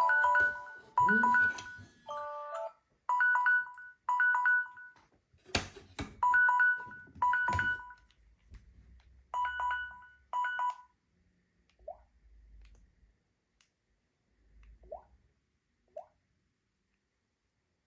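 Smartphone alarm tone: a short electronic two-note chime repeating about once a second, which stops about eleven seconds in. Afterwards only a few faint, short rising chirps are heard.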